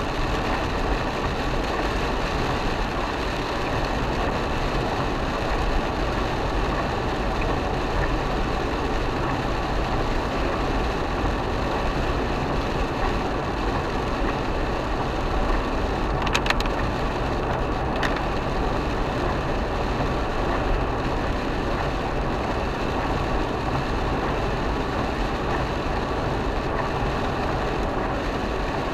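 Steady road noise from inside a car cabin: tyres running on a wet highway over the engine's hum as an Isuzu MU-X drives through rain. Two short clicks come about halfway through, about a second and a half apart.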